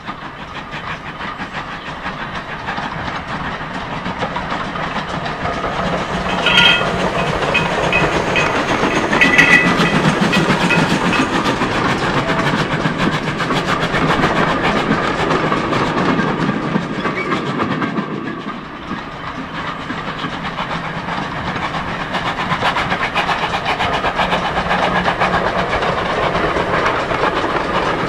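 Archive 1950s recording of a steam train on the move, its wheels clicking rhythmically over rail joints. The sound grows louder over the first ten seconds or so. Brief high tones come in about a quarter and a third of the way through.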